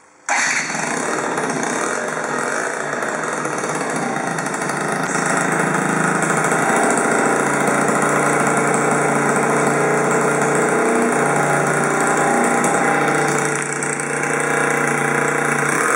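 Benelli 49X 50cc two-stroke scooter engine, fitted with a Leovince ZX expansion-chamber exhaust, comes in suddenly just after the start and then idles steadily, with a brief dip in level near the end.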